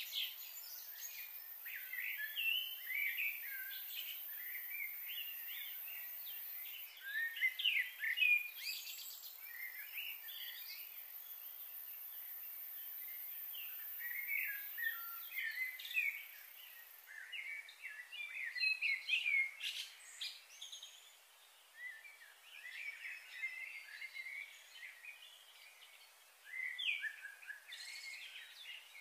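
Wild birds chirping and twittering in many short, quick calls, with a quieter spell past the middle.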